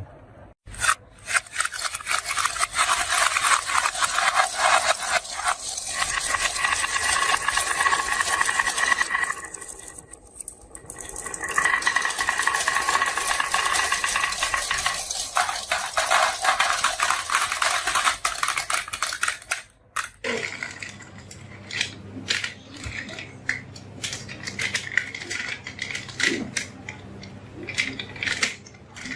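Many marbles rolling and clattering down a marble run track as a dense, rapid rattle, in two long runs with a short lull between them; after about twenty seconds it thins to scattered clicks of a few marbles.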